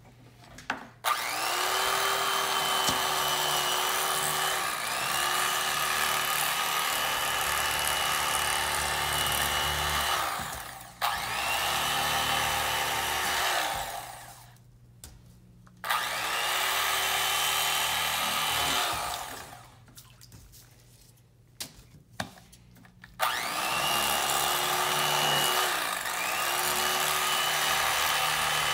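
Corded electric fillet knife running as it cuts through a perch, switched on and off several times with short pauses between. Each time it starts the motor whines up to speed, and its pitch sags briefly a couple of times while it runs.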